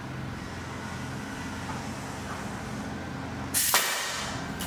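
A steady low hum, then about three and a half seconds in a pneumatic nail gun fires once into a wooden frame corner: a sharp crack followed by a short hiss of released air that fades away.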